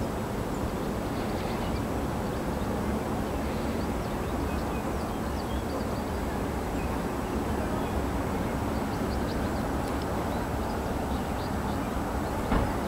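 Outdoor ambience: a steady low rumble with faint, scattered bird chirps, and a single sharp knock near the end.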